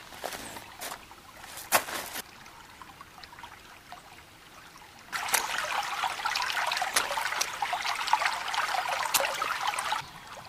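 Shallow stream rushing over rocks, coming in suddenly about halfway through and cutting off abruptly just before the end. Before it there are only a few faint clicks.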